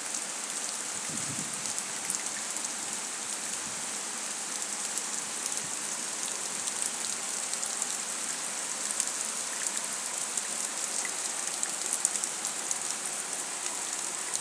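Heavy rain pouring down steadily: a dense, even hiss of falling rain with many individual drops pattering through it.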